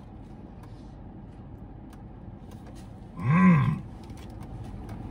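A man chewing a mouthful of biscuit with faint mouth clicks, then one drawn-out 'mmm' of enjoyment, rising and falling in pitch, about three seconds in, over a steady low background hum.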